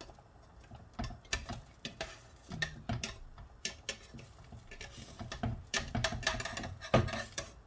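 Slotted metal spatula tapping and scraping against a metal frying pan as pancakes are slid and turned: a run of irregular clicks and knocks, the loudest about seven seconds in.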